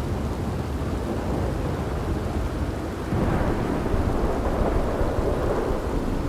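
Steady rain with low rolling thunder, the rumble swelling about three seconds in.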